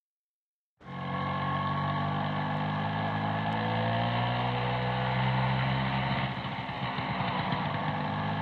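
A motor scooter's small engine running steadily as it rides along the street. The sound cuts in suddenly about a second in.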